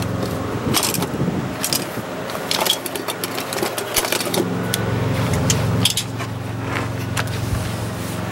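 Metal hand tools and drum brake hardware clinking and rattling in irregular sharp clicks, over a steady low hum.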